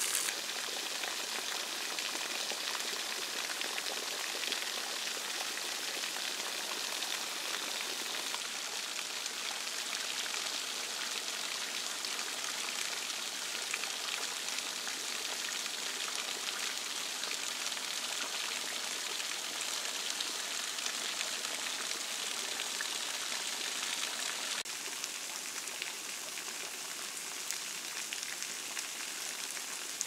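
A thin spring-fed waterfall of many fine streams and single drops falling from a moss-covered travertine overhang, giving a steady, gentle splashing like rain. It turns a little quieter about 25 seconds in.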